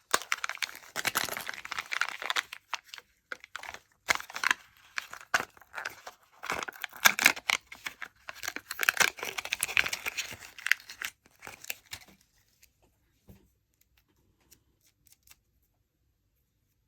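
Candy wrappers being crinkled and torn open by hand, a dense run of crackling and ripping that stops about two-thirds of the way through, leaving only a few faint clicks.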